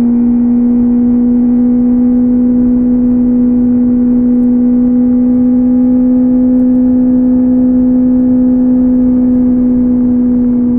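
Kawasaki ZX-4RR's inline-four engine through a Yoshimura AT2 slip-on exhaust, running with a steady, even note. The pitch creeps up slightly and eases off a little near the end.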